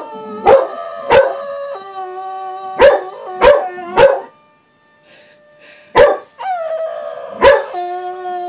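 A dog howling along with an alarm test: long, wavering howls that slide in pitch over the alarm's repeated sharp blasts and steady tone, with a brief pause a little past the middle.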